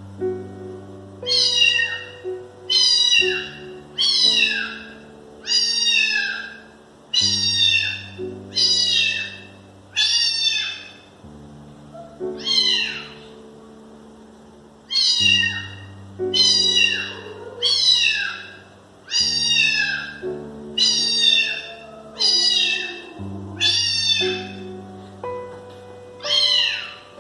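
Cat meowing over and over, short high calls that fall in pitch at the end, about one a second. Background music with slow chord changes plays underneath.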